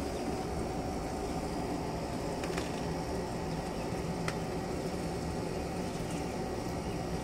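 Steady low background hum, with a couple of faint short clicks.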